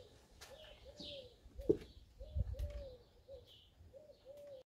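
A dove cooing repeatedly in short and longer low notes. A few sharp clicks break in, the loudest a little under two seconds in, with a low thump soon after.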